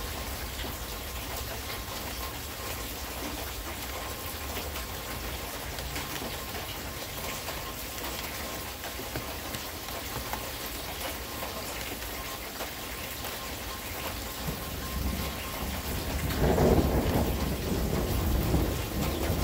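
Steady rain falling, with a rolling rumble of thunder that builds about fifteen seconds in and is loudest near the end.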